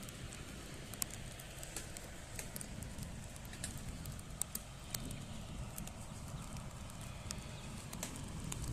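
Low, even rumble of a Citilink ATR 72 turboprop rolling along the runway at a distance, growing a little louder near the end. Scattered sharp clicks and ticks sound over it.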